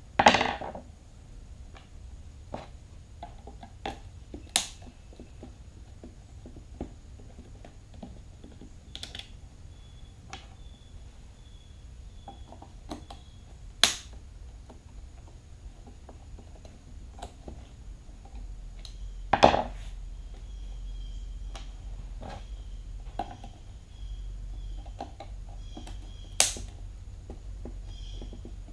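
Scattered clicks, taps and knocks of a screwdriver and plastic housing parts being handled while an electric string trimmer is taken apart, with about five sharper knocks spread through.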